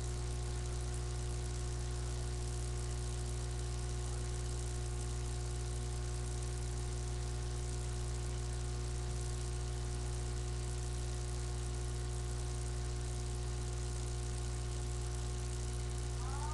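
Steady electrical mains hum with a constant hiss, picked up by a webcam microphone.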